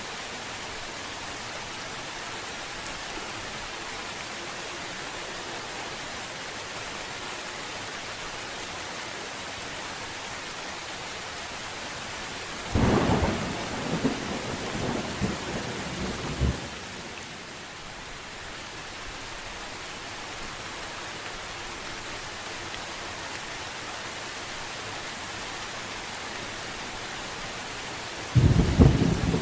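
Steady rain with thunder: a rumble breaks in sharply about thirteen seconds in, rolls for about four seconds and cuts off suddenly, and another roll of thunder starts near the end.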